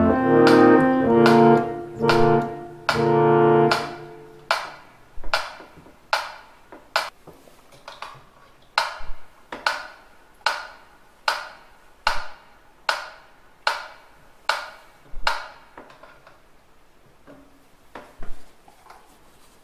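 Harmonium (reed organ) holding the last chords of a slow Andante, dying away about four seconds in. A clockwork metronome then ticks on alone, a little faster than once a second, and stops about three-quarters of the way through.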